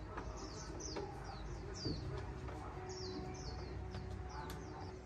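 Small birds chirping over and over in short, quick downward-sweeping chirps, with a few faint clicks and a low background hum.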